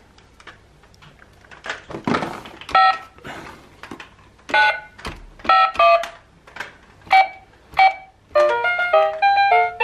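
Pocoyo toy telephone keypad being pressed. Each press gives a short electronic beep-note, six or seven of them spaced irregularly, and a quick electronic tune of rapid notes starts near the end. Before the beeps come a few clicks and a thump as the box is handled.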